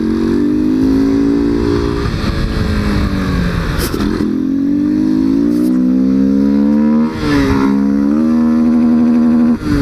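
Honda XRE 190's single-cylinder engine pulling under way, its intake bellowing loud with the air filter removed. The revs sag between about two and four seconds in, then climb again, with brief breaks in the sound about seven seconds in and near the end.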